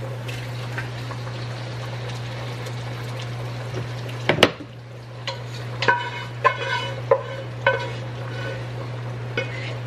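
Beef sizzling as it is tipped from a pot into a hot wok, over a steady low hum. About four seconds in there is one sharp knock. From about halfway there is a run of about seven knocks with a short metallic ring as a wooden spatula taps and scrapes the last of the meat out of the metal pot.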